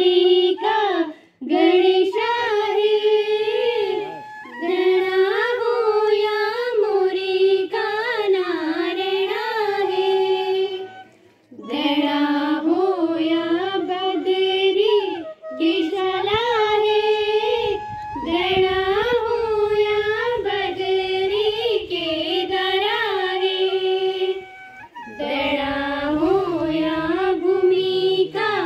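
Schoolgirls singing a folk song in unison into a microphone, in phrases of a few seconds separated by short breaths.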